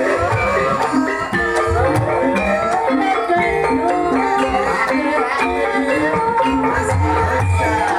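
Banyumasan traditional music for a lengger dance. Tuned percussion plays short interlocking notes, with drum strokes beneath and a wavering melody line above.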